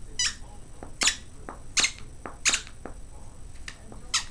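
Squeaker in a stuffingless plush dog toy squeaking over and over as a Jack Russell terrier chews it: five or six short, high-pitched squeaks, with fainter, lower squeaks in between.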